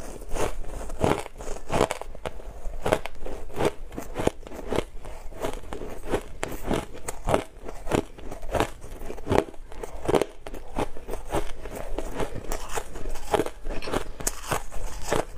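Frosty packed ice being bitten and chewed close to the microphone: a continuous irregular run of crisp crunches, several a second.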